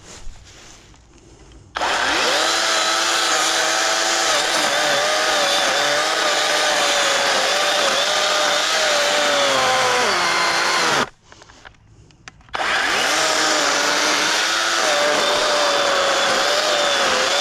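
Kobalt battery-powered electric chainsaw starting up sharply about two seconds in and cutting into hard, resin-soaked pine fatwood, its steady whine wavering and sagging under the load. It stops near the middle for about a second and a half, then starts again and keeps cutting.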